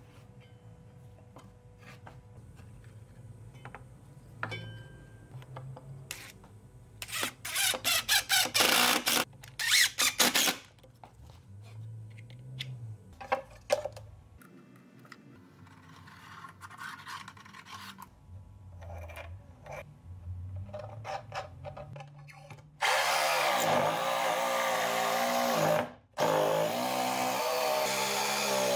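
Woodworking shop sounds: scattered knocks and clicks, then a few seconds of loud rapid rasping strokes. About two-thirds of the way through, a power tool starts and runs steadily, cutting out for a moment once.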